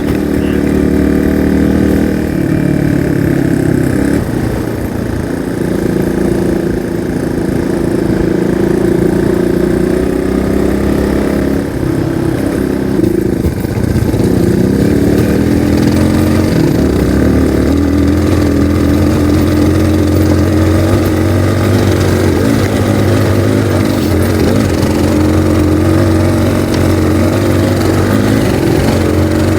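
Single-cylinder dual-sport motorcycle engine running steadily while riding a trail, its pitch shifting up and down with throttle and gear changes.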